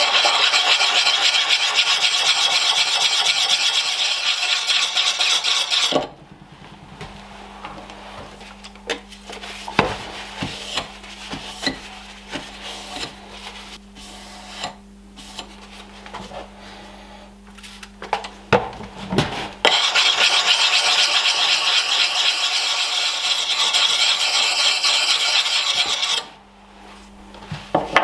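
Double-sided axe puck sharpening stone rubbed fast against the cheek of a Rinaldi Calabria axe head: a steady gritty grinding, honing the edge after filing. It stops after about six seconds for a quieter stretch of light knocks and handling, then starts again for another six seconds or so.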